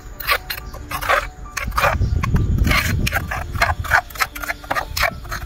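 A spoon stirring a liquid sauce in a stone mortar, clicking and scraping against the stone in quick, irregular strokes, with a low rumble partway through.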